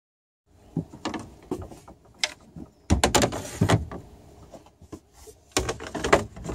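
Companionway hatch boards of a Siren 17 sailboat being slid down the new hatch slides. Scraping and a run of knocks as the two boards drop into place, the loudest knocks near the end.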